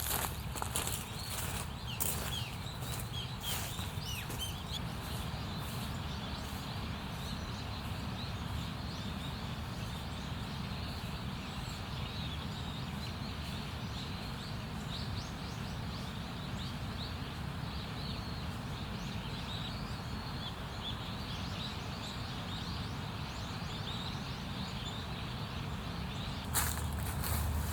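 Outdoor woodland ambience: a steady rushing background noise with small bird chirps scattered throughout. There are a few sharp knocks or crackles in the first few seconds and another near the end.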